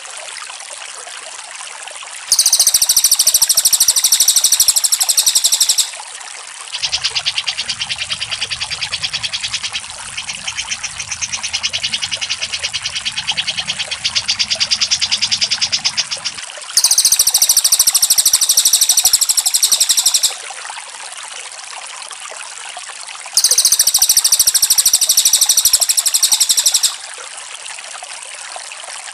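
Songbird recording: three loud, very high rapid trills of about three and a half seconds each, one a couple of seconds in and two in the second half. Between them runs a softer, lower rapid trill with a low hum beneath it. Steady trickling water plays under everything.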